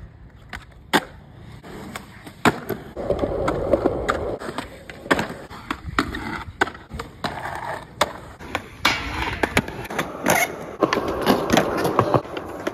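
Skateboard wheels rolling over concrete, with many sharp clacks and knocks as the board is popped, lands and strikes ledges during tricks.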